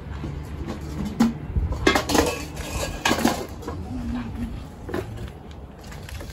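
Metal pots and kitchen utensils clinking and knocking together in a few separate clusters of sharp strikes, the loudest about two and three seconds in.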